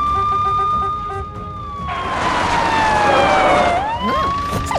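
Police car siren wailing: a tone that rises, holds high, slowly falls and rises again near the end, with a rush of noise about two seconds in.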